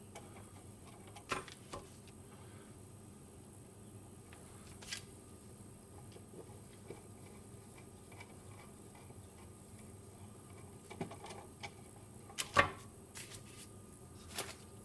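Scattered light clicks and taps of small plastic and metal parts being handled, from work on an electrical outlet and its plastic shim spacers. The sharpest click comes near the end.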